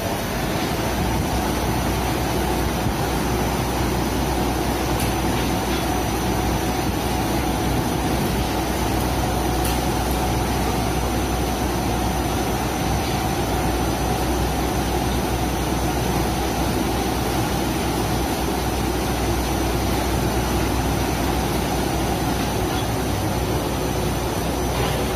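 Automatic car wash running: big rotating brushes scrubbing a van under water spray, over a steady low machine hum.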